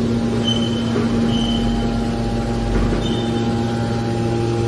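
Hydraulic baling press's power unit running steadily: its electric motor and pump give a constant hum with several steady tones. A few brief high chirps sound over it.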